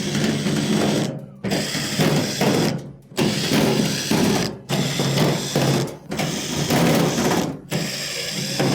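Power screwdriver backing out the screws of a washer's rear panel, in about six short runs of a second or so each with brief pauses between them.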